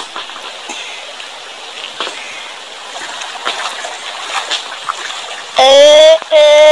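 Water splashing and sloshing around the legs of someone wading through a shallow creek. Near the end, a loud, high-pitched voice calls out twice in long, held cries.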